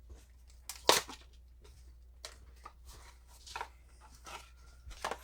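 Plastic packaging of a new electrical receptacle being handled and opened, with one sharp snap about a second in and scattered smaller crinkles and clicks.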